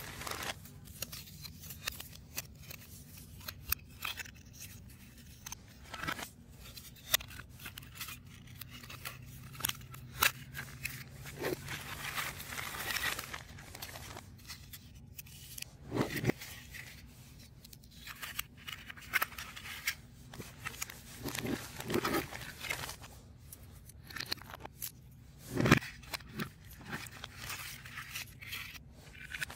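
Hands assembling a 3D puzzle: irregular small clicks, scrapes and snipping sounds as the pieces are handled and fitted together, with a few louder taps, the strongest about three-quarters of the way in.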